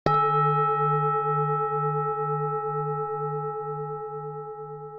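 A single strike on a Buddhist bowl bell (singing bowl), ringing with several overtones that fade slowly. Its deep lowest tone wavers in a slow pulse, about two beats a second, and it is still sounding faintly at the end.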